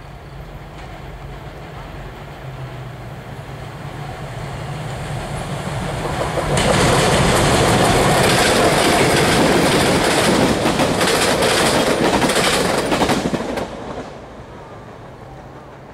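A pair of GMD FP9 diesel locomotives, each with a 16-cylinder EMD 567 engine, hauling a short passenger train. A steady low engine drone grows louder as the train approaches, turns suddenly loud about six and a half seconds in as the locomotives pass close, with wheels clicking over the rail joints. The sound drops off sharply just before the end and fades as the train moves away.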